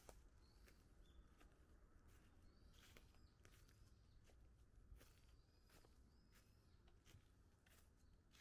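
Faint footsteps crunching through fallen leaves, irregular steps, with a bird calling several times in short, high chirps that rise and fall.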